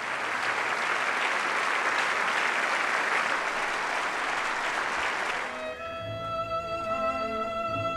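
Concert audience applauding steadily. About five and a half seconds in, the applause fades out and a solo violin and string orchestra begin playing with long held notes.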